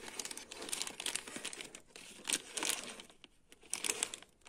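Small clear plastic parts bag crinkling as it is handled in the hand, with louder crackles a little past halfway and again near the end.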